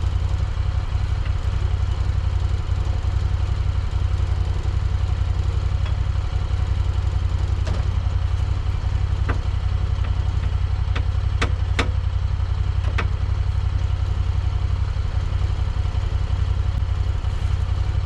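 Vehicle engine idling steadily, with a few sharp metallic clinks about halfway through.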